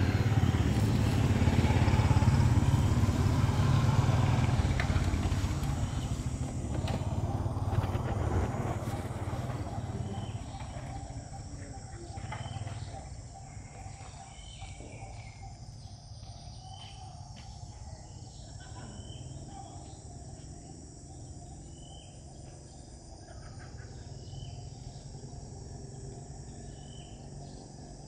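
A low vehicle rumble fades away over the first dozen seconds, leaving quiet outdoor background with short high chirps repeating about every second.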